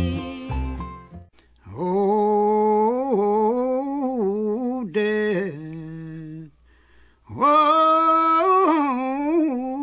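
Soundtrack music: a guitar-backed country song ends in the first second. Then a lone unaccompanied male voice sings two long, slow, wavering phrases, with a short pause between them.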